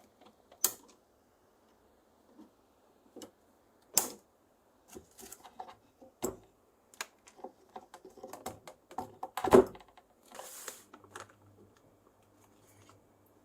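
Irregular clicks and knocks of small hard objects being handled, with a few sharper knocks and a denser run of clicking in the middle, then a brief scraping rustle followed by a faint low hum.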